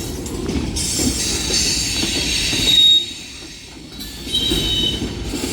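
Union Pacific freight cars rolling past close by with a low rumble and high-pitched metal squealing from the brakes on the wheels. The squeal is loudest about three seconds in, drops away briefly, and then comes back near the end.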